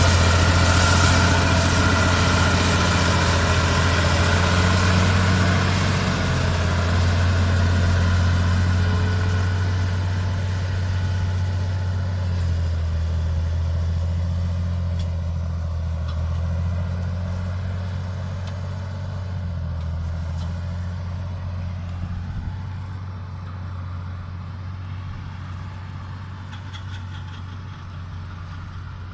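Challenger MT865C tracked tractor's diesel engine running under load as it pulls an 8-metre land leveller through the soil: a steady deep drone that fades as the machine moves away.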